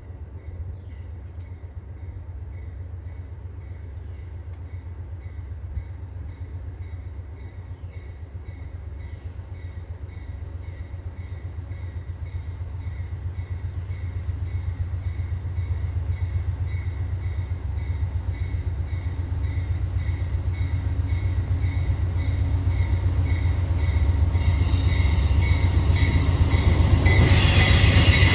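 Amtrak passenger train approaching on the CSX main line: a low locomotive rumble grows steadily louder. Through it runs a ringing tone that repeats about one and a half times a second. A high squeal of wheels on rail rises in the last few seconds.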